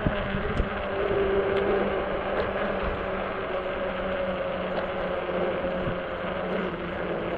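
Ecotric 20-inch e-bike's electric motor humming steadily while riding, over an even rush of wind and tyre noise, with a couple of light knocks in the first second.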